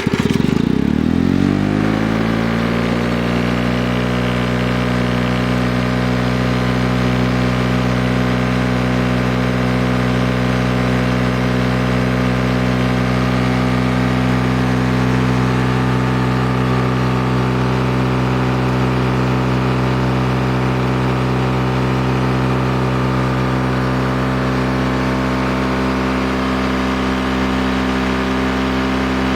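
1972 Lawn-Boy model 7081 brick-top mower's two-stroke engine starting and rising in pitch over the first couple of seconds, then running at a steady speed. The engine is freshly rebuilt with new piston rings, gaskets, crankshaft seals, points and condenser and an overhauled carburettor.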